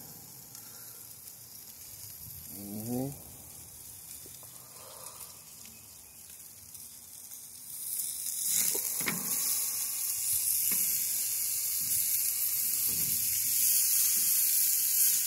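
Pork and chicken sizzling on hot barbecue grill grates: a faint hiss grows much louder about halfway through and stays steady, with a few sharp crackles just after it swells.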